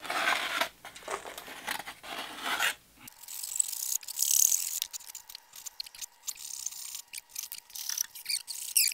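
Wood block and pencil scraping as stool legs are scribed, then, after about three seconds, a hand saw cutting through the wooden legs with quick, uneven strokes of high-pitched rasping.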